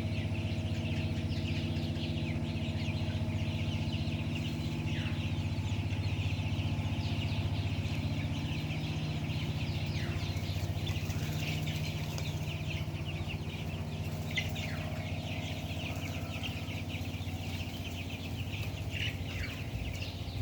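A flock of Kroiler chicks, about 20 days old, peeping and cheeping continuously in many overlapping short calls, with a few louder downward-sliding peeps. A steady low hum runs underneath.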